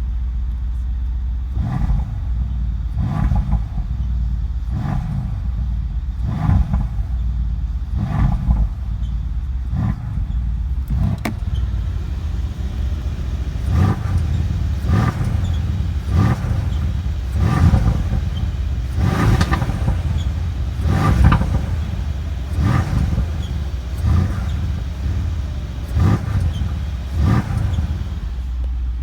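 Mercedes-AMG C63 S (W205) twin-turbo V8 running, with a short noise every second or so: the exhaust flaps squeaking, a fault that has come back despite repeated servicing.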